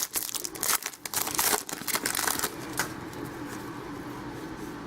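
Trading cards being handled, a quick run of clicks and rustling for the first few seconds, then only a faint steady hiss.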